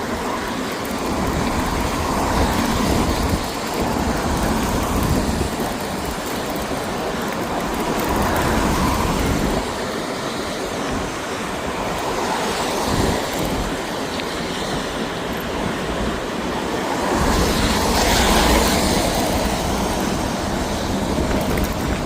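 Steady rushing noise of a bicycle being ridden in the rain: wind buffeting the microphone in low gusts over the hiss of tyres on wet road. It swells loudest about three quarters of the way through.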